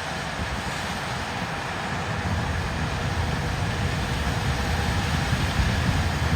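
Heavy diesel farm vehicle running and driving, a steady low rumble that grows slowly louder.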